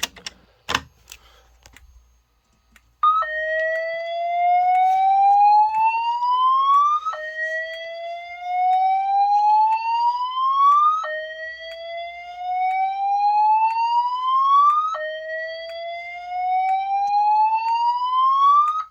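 Slow whoop evacuation tone from EST G4 fire alarm speaker strobes. A tone rises slowly over about four seconds, drops back at once and starts climbing again, four sweeps in a row beginning about three seconds in.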